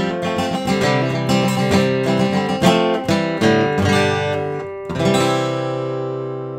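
Background music on acoustic guitar, strummed and picked, ending on a final chord about five seconds in that rings on and slowly fades.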